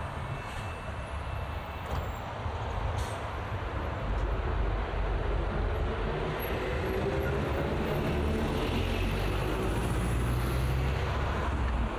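Road traffic: a steady rumble of passing vehicles, growing louder about four seconds in as a heavy vehicle's engine comes close, its engine note sliding in pitch as it passes.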